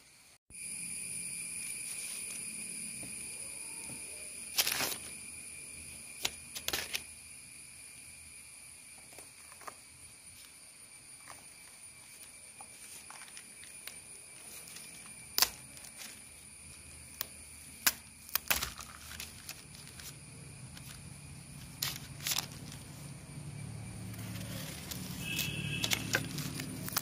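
Scattered sharp clicks and crackles as a ripe seed cucumber is sliced with a knife and pried open by hand on a plastic sheet, with a low rustle building near the end, over a steady high-pitched whine.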